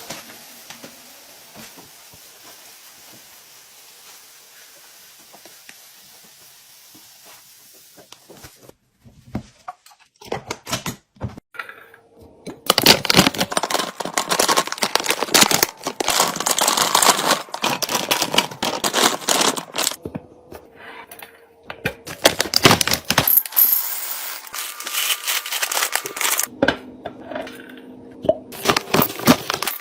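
Restocking sounds of packaging being handled: plastic crinkling and tearing, and small hard items knocking together as they are set down. A faint steady hiss comes first, with the handling starting about ten seconds in. It is busiest in the middle, pauses briefly, then picks up again near the end.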